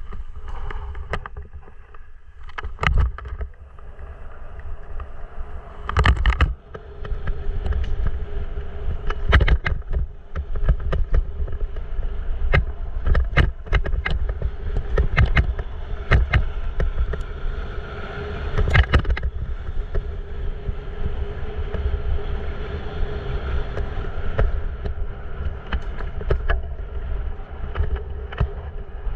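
Mountain bike descending a rough dirt trail: tyres rumbling over gravel and loose stones, with frequent sharp rattles and knocks from the bike over bumps, and wind on the microphone. It grows louder about six seconds in as the pace picks up.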